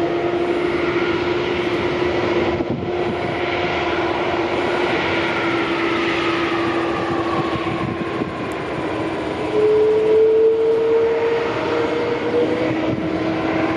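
Jet airliner engines running: a steady whine over a wash of jet noise, with a higher whine falling slowly in pitch over several seconds. About ten seconds in, a louder tone comes in and rises slightly for about three seconds.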